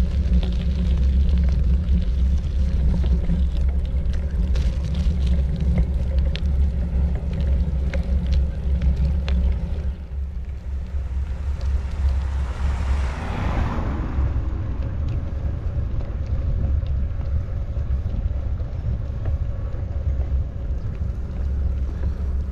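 Wind buffeting the microphone as a steady low rumble while on the move outdoors, with a brief whoosh that swells and fades about halfway through.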